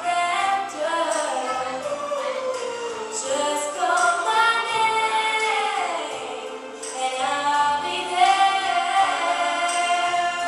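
A song playing: singing voices over instrumental backing.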